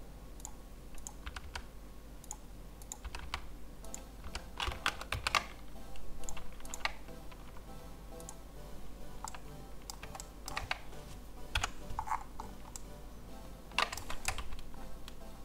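Computer keyboard keys and mouse buttons clicking irregularly, single clicks and short clusters, with a few louder bunches of clicks near the middle and near the end.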